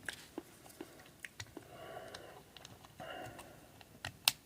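Quiet eating sounds from a meal of crab legs: scattered soft clicks and mouth noises, with a couple of sharper clicks near the end.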